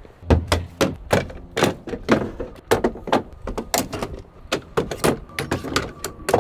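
Rapid irregular run of sharp knocks, clicks and clunks, about three a second, like hard objects being handled and set down.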